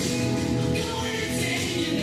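Music with singing voices and sustained held notes.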